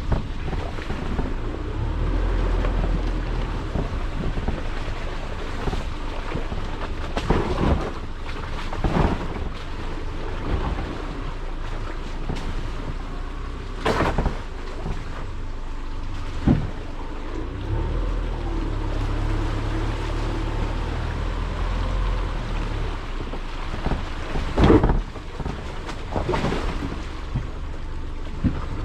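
A car driving: a steady low engine and road rumble with wind buffeting the camera's microphone, and now and then a sharp thump.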